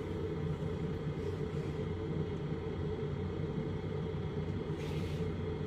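Steady low hum of machinery in the background, with a faint short rustle about five seconds in.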